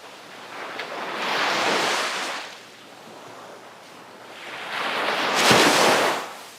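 Sea waves breaking on the shore: two waves come in, each a swelling rush of surf that then hisses away, the second, about five seconds in, the louder.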